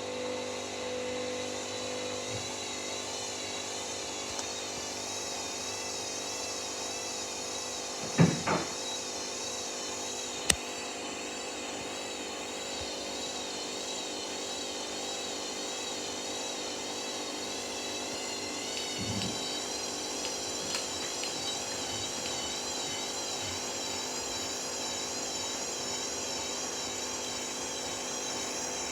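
Hoover washing machine running with a load of bedding: a steady motor whine with a warbling high tone. There is a loud thump about eight seconds in and a sharp click a couple of seconds later, and a higher tone joins about two-thirds of the way through. The load is badly unbalanced.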